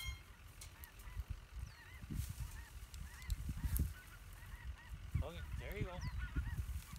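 A series of short honking calls: a few faint ones early on, then a louder quick run of honks about five seconds in, over low rumbling on the microphone.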